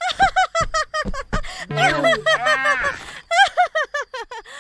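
A young woman's voice-acted laughter, a fast run of high 'ha-ha' syllables that comes in bursts; about two seconds in, a short patch of overlapping gliding tones joins it before the laughing carries on.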